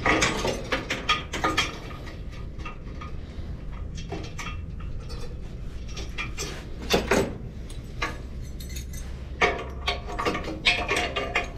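Hand tools and small metal parts clinking and rattling in several bursts of clicks and scrapes, over a steady low hum.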